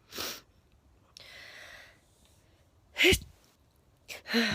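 A woman sniffs, draws in a long breath, then sneezes loudly about three seconds in. A second sneeze follows near the end.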